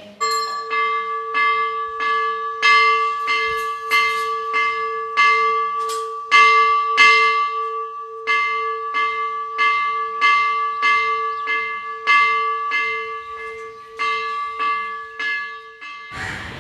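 Temple bell rung over and over, about one and a half strikes a second, each strike ringing on into the next; the ringing cuts off near the end.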